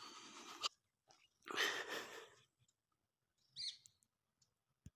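Faint breaths of a person close to the microphone, two soft hissing breaths about a second and a half apart. A short high chirp follows near the end.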